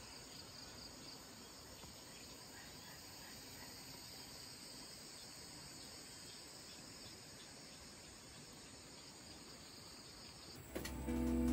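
Faint, steady, high-pitched insect chorus. Loud guitar music starts near the end.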